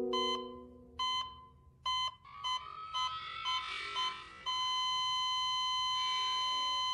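Patient heart monitor beeping, a sound effect: the beeps come about once a second, quicken, then turn a little before halfway into one unbroken flatline tone, the sign that the heart has stopped.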